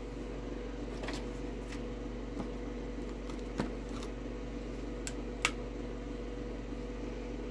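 A few faint clicks and taps of small objects being handled, over a steady background hum; the loudest clicks come about three and a half and five and a half seconds in.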